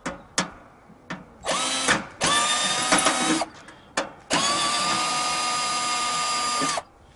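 Cordless drill running in three bursts of steady whine, each spinning up at the start, the last lasting about two and a half seconds, with short clicks in between. The motor sounds like it is dying, a sign that its battery is running low.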